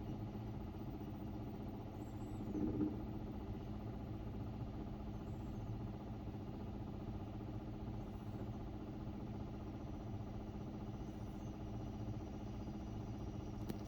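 Samsung WA50R5200AW washing machine running with a steady motor hum, loaded with a single pair of pants, with a brief louder knock about three seconds in.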